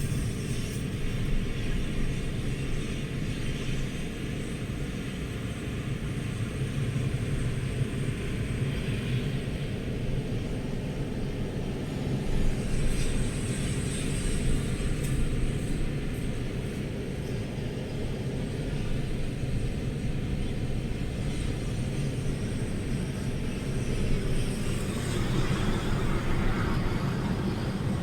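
Strong storm wind buffeting the microphone: a steady low rumble that swells and eases a little now and then.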